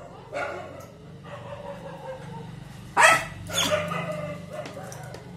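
Lhasa Apso barking in short outbursts, the two loudest barks coming in quick succession a little past halfway.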